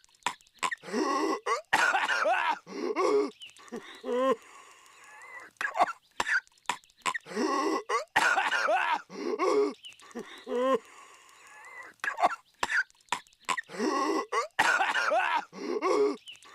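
Voice-acted cartoon character coughing violently: harsh hacking coughs mixed with croaky, strained gasps that rise and fall in pitch. The same coughing fit is looped and repeats about every six and a half seconds.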